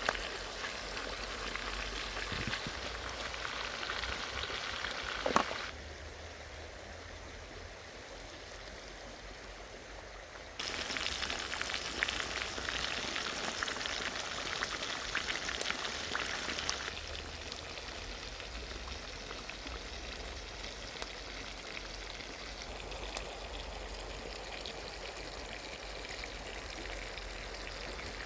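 Pork sizzling and crackling in a frying pan, a steady spitting hiss that drops and rises abruptly in level a few times, with a single knock about five seconds in.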